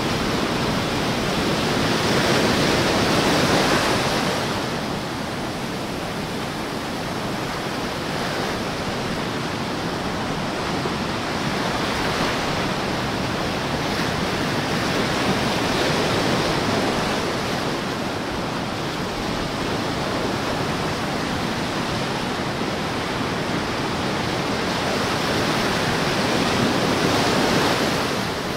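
Small ocean waves breaking and lapping up the sand among rocks at the water's edge: a steady surf wash that swells and eases as each wave comes in, loudest about three seconds in and again near the end.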